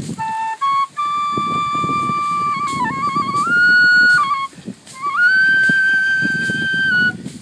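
Bamboo transverse flute played solo in a slow melody. A few short notes open it, then come long held notes, with a dip and slide in pitch about three seconds in. After a brief break, a long high note is held to near the end.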